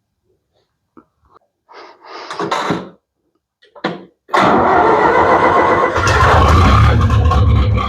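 Some clicks and short rattling bursts, then about four seconds in the engine of a 63-year-old farm tractor starts and runs loudly and steadily with a deep hum.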